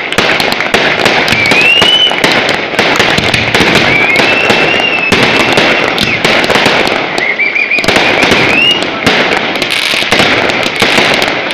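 Fireworks going off: a dense, continuous crackle of bangs and pops from aerial shells and fountains. High whistles glide upward three times.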